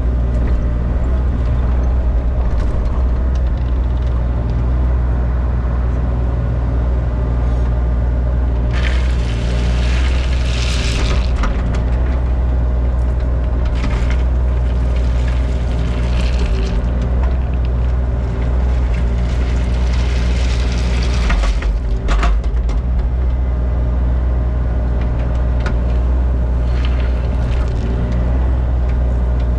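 Mini excavator's diesel engine running steadily, with several stretches of crushed stone rattling and scraping as the bucket moves it, loudest near the middle.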